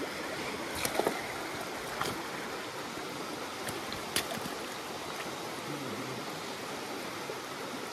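Small rocky stream rushing over stones and through a riffle: a steady wash of flowing water. A few light knocks stand out about a second in and again around four seconds in.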